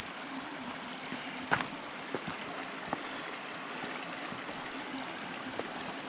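Shallow mountain river running low over rocks: a steady rush of water. A few short sharp knocks sound over it, the loudest about a second and a half in.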